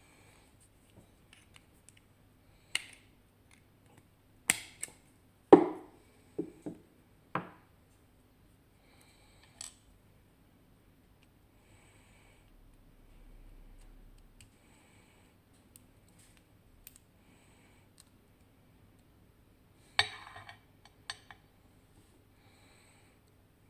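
Scattered sharp metallic clicks and knocks of small tools and parts being handled while a Tokoz Tech lock cylinder is taken apart, with a cluster of knocks about five seconds in and another about twenty seconds in.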